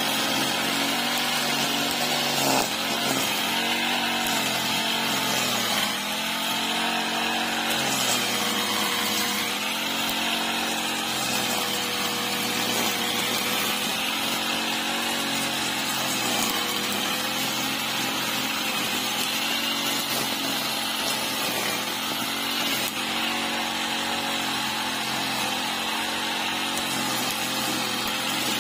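Engine-driven brush cutter cutting grass, running continuously with its engine speed wavering up and down as it is swung through the grass.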